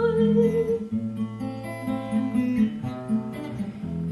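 Acoustic guitar accompaniment playing an instrumental passage between verses of a song, strummed chords over bass notes. A held sung note dies away about a second in.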